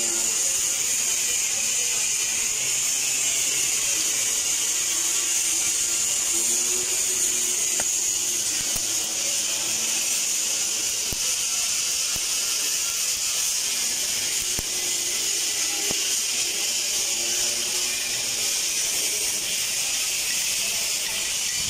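TIG (argon) welding arc burning on steel pipe, a steady hiss that holds unbroken throughout.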